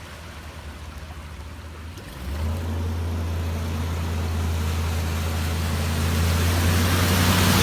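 A delivery truck's engine comes in about two seconds in as a steady low hum and grows steadily louder as it approaches through floodwater, with the rush of water building toward the end. Before it, only faint trickling water.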